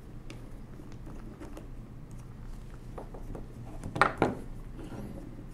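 Screwdriver working a small steel screw out of the calculator's metal frame: faint metallic scrapes and ticks, then two sharp metal clinks about four seconds in.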